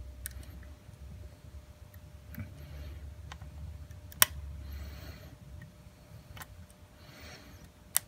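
Lock pick and tension wrench working the serrated pins and spools of a Schlage padlock. Scattered small, sharp metal clicks, one louder click about four seconds in, over a low handling rumble.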